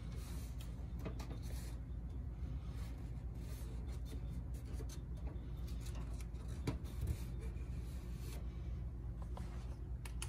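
Faint handling noise, light rubbing and a few small clicks with one sharper click about two-thirds of the way through, over a steady low hum.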